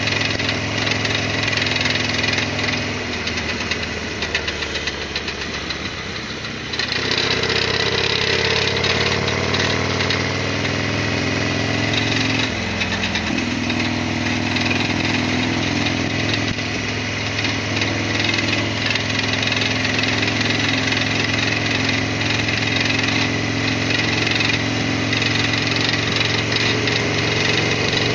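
Harley-Davidson Sportster XL1200R's 1200 cc air-cooled V-twin running under way, heard from the rider's chin-mounted camera. It eases off for a few seconds, then picks up again with rising pitch about seven seconds in.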